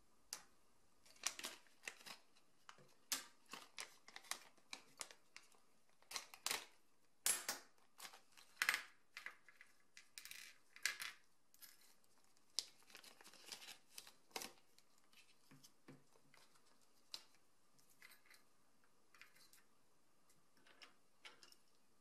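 Small metal and plastic banana-plug parts being handled and set down on a tabletop: irregular clicks and taps, densest in the first half and thinning out later, with a few faint ticks near the end as a small screwdriver works the plug's screw terminal.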